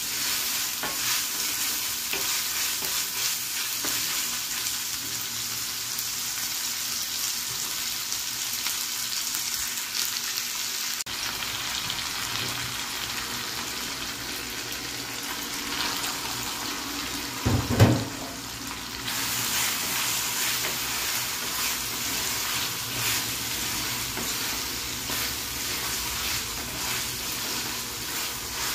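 Sliced onions sizzling as they fry in oil in a nonstick pan, with the scrape and clatter of a wooden spatula stirring them. About two-thirds of the way through there is one brief low thump, as chopped tomatoes go into the pan, and the frying goes on.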